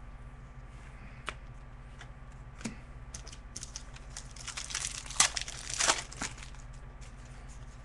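Trading-card pack wrapper crinkling and tearing as a pack of hockey cards is opened, over a steady low hum. Two sharp clicks come in the first three seconds, and the crinkling is loudest about five to six seconds in.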